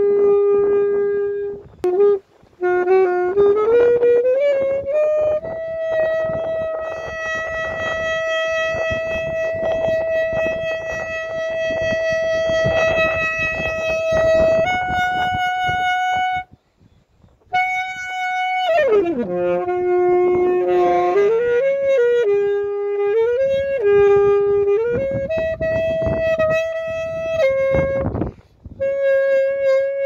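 Solo saxophone playing a slow melody one note at a time: a long held note lasting about nine seconds, a short break just past the middle, then a downward slide and a string of shorter notes.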